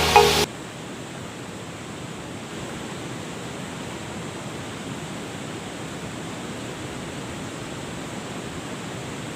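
Steady rush of flowing river water. Background music cuts off about half a second in.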